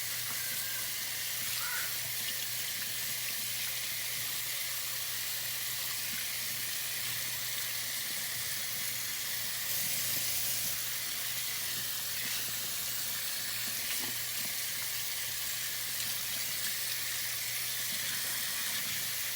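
Tap water running steadily into a sink, an even hiss, as bleach is rinsed out of a lace wig.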